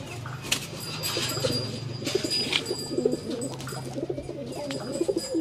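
Domestic pigeons cooing: a run of short, repeated low coos, with a few sharp clicks among them.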